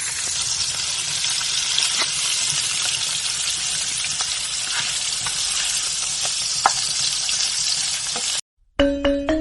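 Food sizzling as it fries in hot oil in a pan, a steady hiss with a few light clicks of a utensil. It cuts off abruptly near the end, and music with quick mallet-like notes starts.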